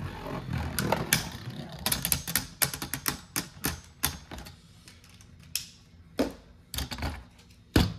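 Two Beyblade Burst spinning tops, Dusk Balkesh and Right Artemis, whirring and clashing in a plastic Hypersphere stadium. Rapid clicking and rattling of metal-and-plastic tops knocking together fills the first four seconds. After that the clicks thin out to a few single sharp clicks near the end.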